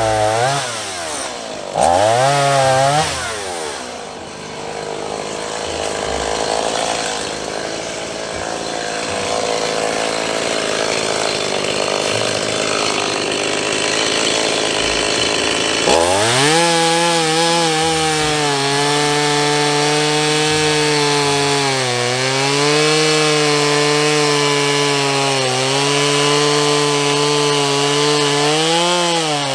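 Two-stroke chainsaw cutting into wood at high revs. Its engine note sags and recovers as the bar loads in the cut. In the first half the sound turns rough and noisy, then about halfway it settles into a steady high whine that dips a few times under load.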